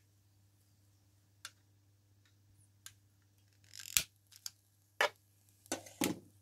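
A long-nosed butane lighter lighting the burner wick of a model flame-gulper engine: a short gas hiss and a sharp click about four seconds in, followed by several more sharp clicks and knocks of handling.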